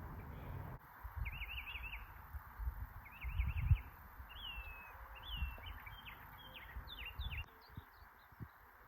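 A songbird calling: two quick runs of up-and-down notes, then a falling whistle and a scatter of short chirps, over low rumble and soft thumps.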